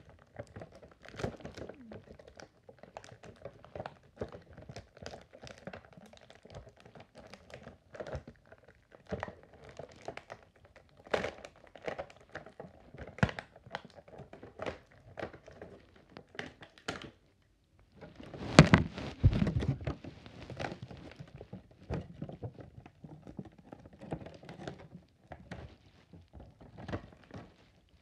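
Handling noises of a toy being unpacked: an irregular run of light clicks, taps and crinkles of plastic packaging, broken by a moment of silence about two-thirds through and then a loud thump followed by rustling.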